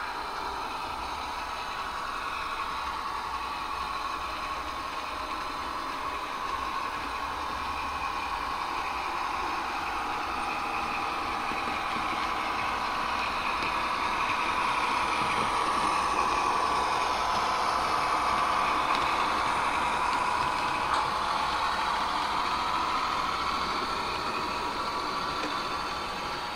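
H0-scale model of a Henschel DH 850 D diesel locomotive hauling hopper wagons past, its digital sound decoder playing a steady diesel engine sound. It grows louder as the train approaches, is loudest a little past the middle, and fades near the end.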